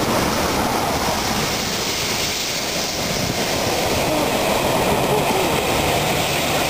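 Steam locomotive 60163 Tornado, a three-cylinder Peppercorn A1 Pacific, passing with its train of coaches: a steady rushing noise of the engine and the coaches rolling along the track.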